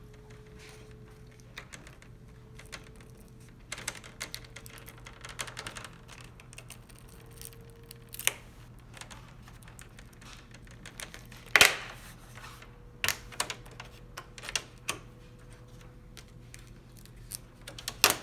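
Scattered plastic clicks and snaps of a laptop's screen bezel being worked loose by hand. The loudest snap comes a little past the middle, followed by a few more sharp clicks.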